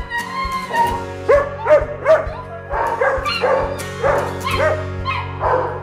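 Many shelter dogs barking and yelping at once, a dense run of overlapping barks several a second, over background music.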